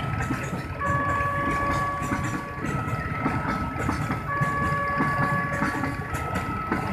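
A level-crossing warning siren sounding a two-tone alternating signal, switching pitch about every second and three quarters. Under it runs the steady low rumble of an empty freight train's flat wagons rolling through the crossing.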